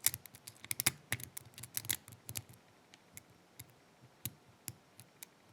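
Lock pick and tension wrench working the pins of an ISEO five-pin pin-tumbler cylinder during single-pin picking: a quick run of light metallic clicks for the first two and a half seconds, then sparser single clicks.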